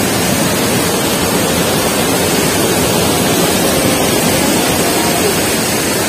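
Waterfall: white water rushing steadily over a rock ledge at the top of the fall, a loud, even, unbroken rush.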